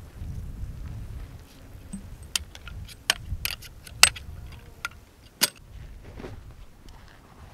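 Metal tent pole sections clicking and clinking as they are pulled apart and folded, about six sharp clicks, the loudest about four seconds in. Wind rumbles on the microphone underneath, strongest at the start.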